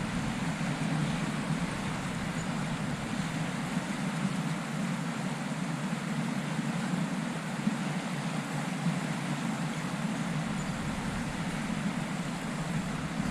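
Steady rush of a stream's running water, an even hiss with a low rumble, holding level throughout.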